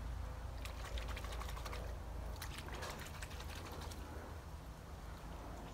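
A quick, irregular run of light clicks and rattles lasting about three seconds, over a low steady rumble.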